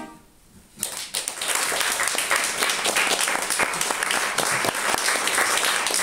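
Small audience applauding after a song, starting about a second in and going on steadily.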